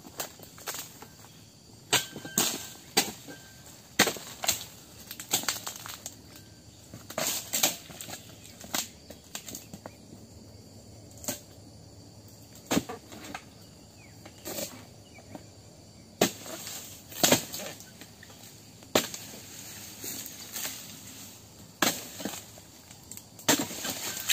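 Oil palm harvesting chisel (dodos) on a long pole chopping into the tough bases of palm fronds: dozens of sharp chopping strikes at uneven intervals, roughly one to two a second, with a couple of short pauses.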